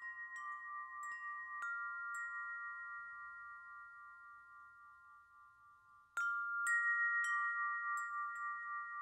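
Soft background music of sustained chime-like tones with light high tinkles. The tones slowly fade almost away, then a new chime chord comes in with a sparkle about six seconds in.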